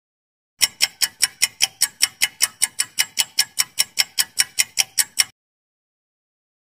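Clock-ticking sound effect marking a quiz countdown timer: sharp, even ticks about five a second, starting about half a second in and cutting off abruptly about five seconds in.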